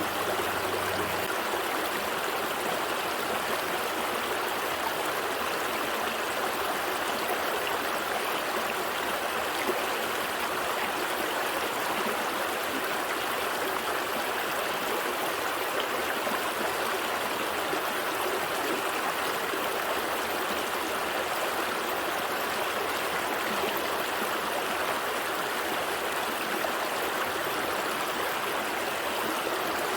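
Gentle stream flowing steadily over rocks, a continuous rushing and trickling of water.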